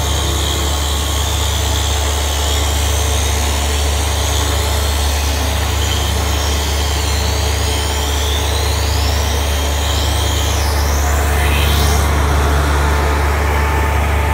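Broom-handle rounding machine running with a steady low hum as a wooden handle is fed through its roller feed. Over the hum a high whine wavers up and down in pitch through the middle stretch.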